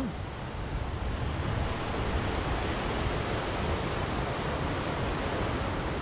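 Steady rush of sea surf breaking along the shore, an even wash of noise with no distinct single crashes.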